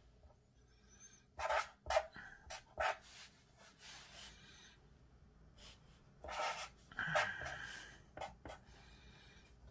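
Black felt-tip marker scratching and squeaking across paper in short strokes, in two clusters, as characters are written.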